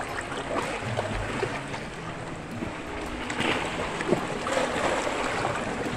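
Seawater sloshing and washing over shoreline rocks, with a few sharp clicks of a knife blade scraping the rock.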